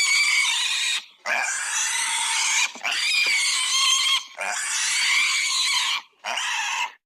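Pig screaming and squealing: five long, high-pitched squeals in a row, each lasting a second or more, with brief breaks between them.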